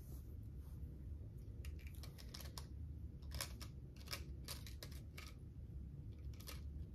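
Long fingernails clicking and tapping on a small plastic package as it is picked open: a faint, irregular run of light clicks that starts about a second and a half in.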